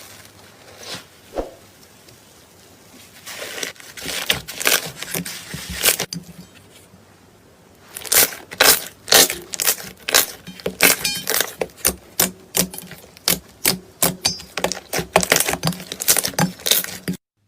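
Clear slime being pressed and pulled by hand, making rapid runs of sticky pops and clicks from trapped air, with a quieter pause between two runs; it stops suddenly near the end.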